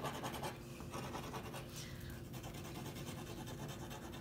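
Toothpick scratching quickly back and forth through a thick layer of black wax crayon on paper, a faint rapid scraping. A low steady hum lies under it.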